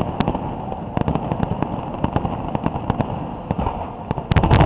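Fireworks going off: an irregular string of sharp pops and cracks over a steady rumble, with a louder cluster of bangs near the end.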